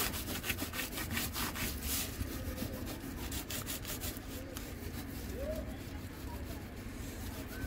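Repeated short scraping strokes on a hard surface, quick and dense for the first two or three seconds, then sparser.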